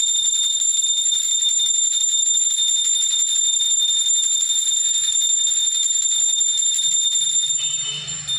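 Small puja hand bell (ghanti) rung rapidly and without pause: a steady high ringing over a fast rattle of clapper strikes, fading out near the end.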